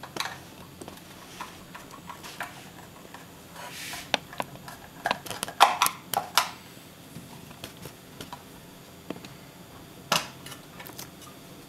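Irregular small clicks, taps and a short scrape of a screwdriver working a screw out of an electric iron's plastic housing, then plastic clicks as the iron's top cover is worked loose, with a sharp click near the end.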